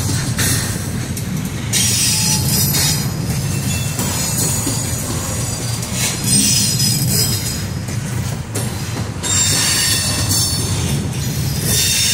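Double-stack intermodal well cars rolling past close by: a steady low rumble of wheels on rail, with high-pitched wheel squeal and hiss that swells and fades every couple of seconds.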